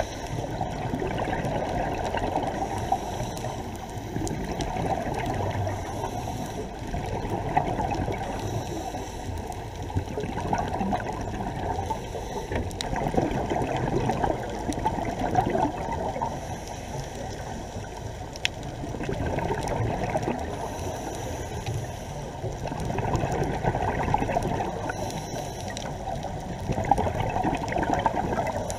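Muffled underwater noise heard through a waterproof camera housing: a dull, low water rush that swells and fades every few seconds.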